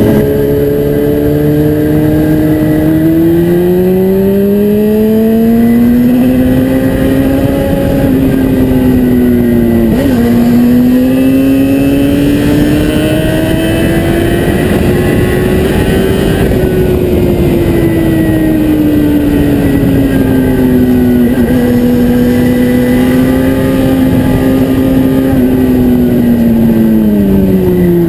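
Yamaha FZ6 inline-four engine running through an aftermarket Atalla exhaust. The engine speed climbs slowly and dips sharply for a moment about ten seconds in, as at a gear change. It then climbs higher until about sixteen seconds in, eases back and holds steady, and falls off near the end.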